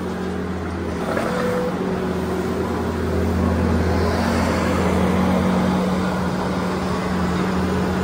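Case SV340 skid steer's diesel engine running with a steady low hum, working as its grapple bucket spreads corn stalk bedding. It grows a little louder in the middle.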